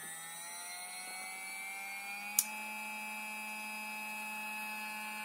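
Surpass Hobby Rocket 4092 1650KV brushless motor spinning with no load: a smooth whine that rises in pitch as it winds up to full throttle over the first couple of seconds, then holds steady. A single short click about two and a half seconds in.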